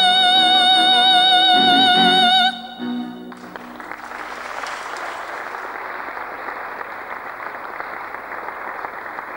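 A female soloist holds a long final sung note with vibrato over accompaniment, cutting off about two and a half seconds in, followed by a short accompaniment chord. The audience then applauds steadily.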